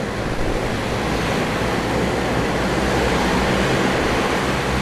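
Twin-turboprop aircraft's engines and propellers running on the ground: a loud, steady turbine-and-propeller roar that grows louder in the first second, then holds.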